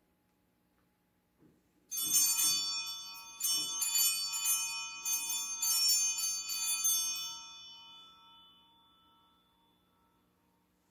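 Altar bells rung at the elevation of the consecrated host: a series of quick, uneven strikes starting about two seconds in and lasting some five seconds, then ringing out.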